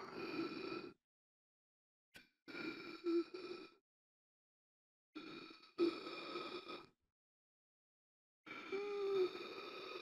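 A person gasping for air: a run of heavy, noisy breaths, each one to two seconds long, about every three seconds, with dead silence between them. Some breaths carry a short voiced catch, like a strained groan.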